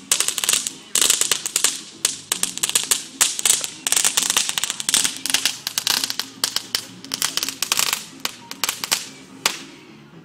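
Firecrackers going off on pavement: a rapid, irregular run of sharp pops and crackles that thins out near the end.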